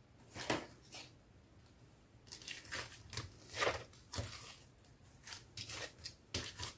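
Thick slime mixed with makeup powder, glitter and foam beads being pressed and stretched by hand, giving a string of short, sticky, crackly sounds, about a dozen in all at an uneven pace.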